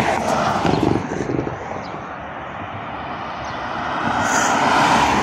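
Roadside traffic noise from a car approaching and passing on the highway, its tyre and engine noise swelling near the end.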